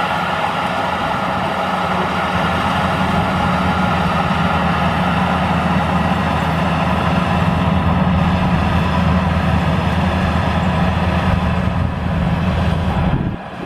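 Combine harvester engine and machinery running steadily under load, a constant drone; the sound drops off suddenly near the end.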